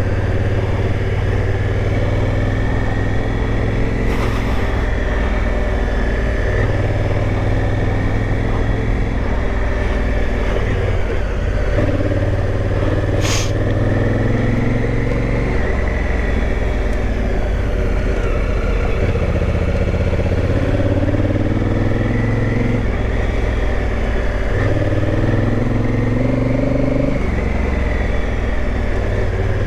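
Adventure motorcycle engine running while ridden along a dirt trail, its note rising and falling with the throttle. There is one sharp click about 13 seconds in.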